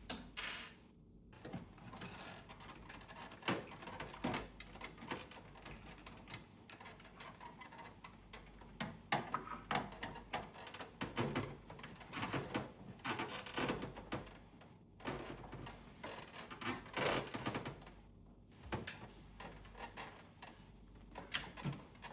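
Irregular clicks, taps and rattles of hard plastic parts and hand tools as an air conditioner's indoor unit is taken apart, busier in the middle of the stretch, over a faint steady hum.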